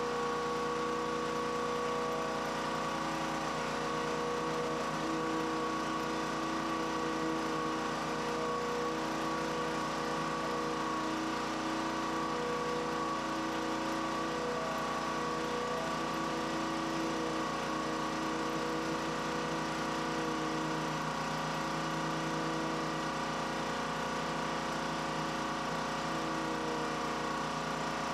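Gas pressure washer engine running steadily, with small shifts in its tone.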